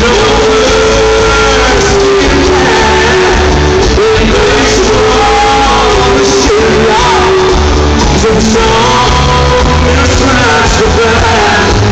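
Live country band playing loudly: a man sings lead over acoustic guitar, bass, keyboards and drums.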